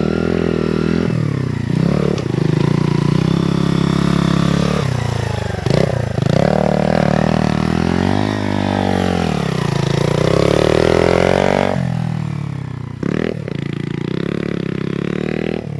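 Herald Maverick 125's air-cooled single-cylinder four-stroke engine being ridden hard off-road, its note rising and falling over and over as the throttle is opened, gears are changed and it backs off. It drops to a lower, steadier note after about twelve seconds.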